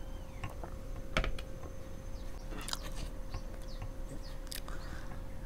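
Close-miked sipping and swallowing from a glass mug, heard as scattered small mouth clicks, with a sharper click about a second in. Light clicks and taps follow as the glass is set down and a wooden fork is picked up against the tray.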